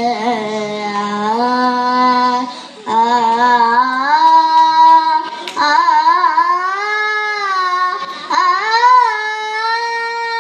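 A young girl singing a Malayalam light song (lalithaganam) solo, in long held notes with sliding ornaments, pausing briefly for breath between phrases.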